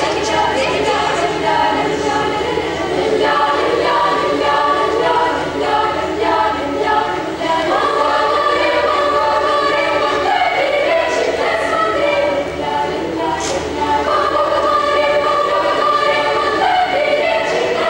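Girls' children's choir singing together, holding long notes in several parts.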